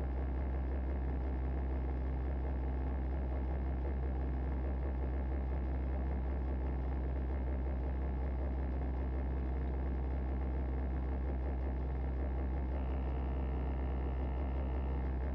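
A competition car's engine idling steadily, heard from inside the stripped cabin as a low, even drone.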